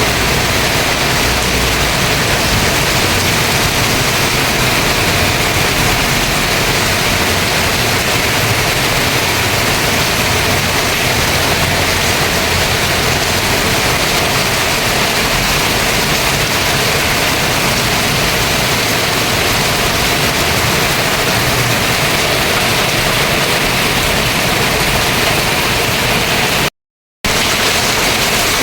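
Heavy rain pouring down in a sudden downpour, a loud steady hiss. The sound cuts out for a moment near the end.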